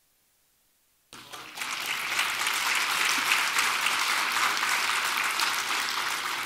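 Audience applause that begins suddenly about a second in, after near silence.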